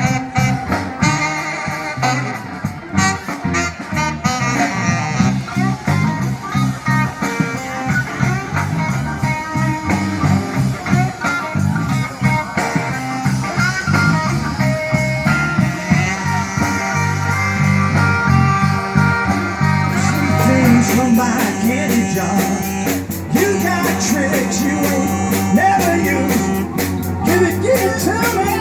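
Live blues-rock band playing an instrumental passage, with electric guitar, bass, drums and keyboards. The cymbals grow busier about two-thirds of the way through.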